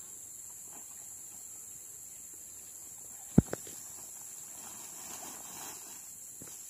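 Steady high-pitched insect drone from the riverbank vegetation, with a sharp double knock about three and a half seconds in and faint water swishing near the end as the net is handled in the river.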